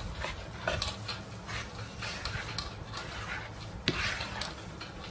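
A ladle and hand stirring and pressing a dark, moist ground mixture in a large steel bowl: soft, irregular scraping and rustling, with a sharp click about four seconds in.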